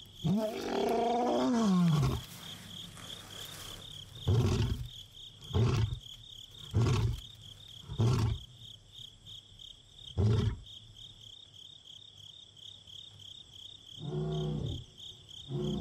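Male lion roaring: one long moaning roar falling in pitch, then a series of short grunting roars about a second apart, with two more near the end. A steady, pulsing high chirping runs underneath.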